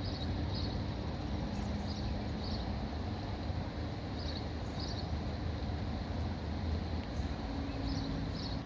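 A small bird chirping in quick pairs of short high notes about every two seconds, over a steady low rumble and hiss of outdoor background noise.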